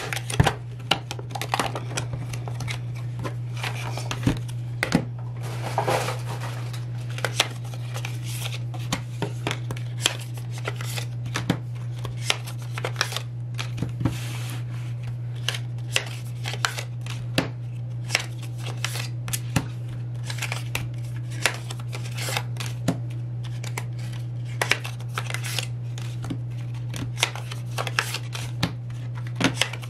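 Sped-up handling of photocards and their plastic sleeves and paper packs: a quick run of clicks, snaps and rustles of card and plastic, over a steady low hum.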